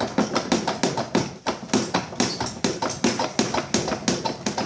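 Rapid, irregular knocking and clattering, about four or five hits a second, as a part of a Brastemp top-load washing machine's drive assembly is pulled and rocked back and forth to work it loose.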